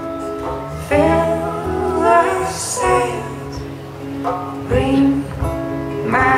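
A folk string band playing live: plucked acoustic guitar and strings over a steady upright bass line, with a woman's voice singing.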